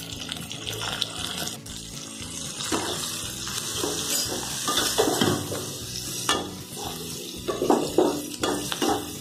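Shallots, curry leaves and dried red chillies frying in sesame oil in a metal kadai with a steady hiss, while a flat metal spatula stirs them, scraping and knocking against the pan several times in the second half.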